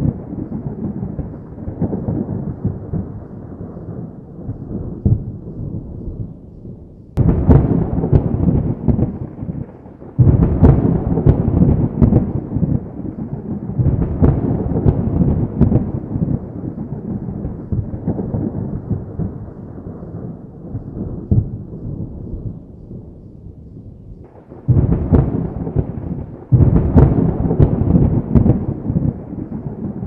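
Thunder from a squall line of thunderstorms: continuous low rumbling that swells and fades, with louder peals breaking in abruptly several times, about a quarter of the way in, again a few seconds later, and twice near the end.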